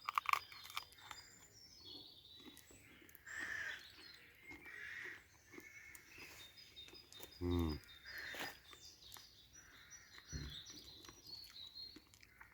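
A man bites into and chews a campfire-baked pizza, with small crunching clicks at the start and a short, falling 'mmm' of the voice about halfway through. Birds chirp softly in the background.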